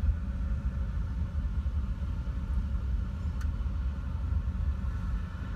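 Steady low rumble of a passing train, with a faint steady higher tone above it.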